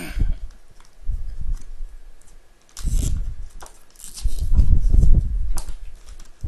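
Handling noise from a small SSD in clear plastic packaging being turned over and pressed against a wooden tabletop: irregular crinkling and clicking of plastic with dull thumps and bumps, loudest about halfway through.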